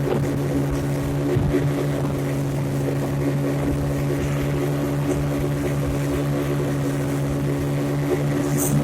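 A 40 hp outboard motor pushing a payang fishing boat, running steadily at constant speed with an unchanging engine note.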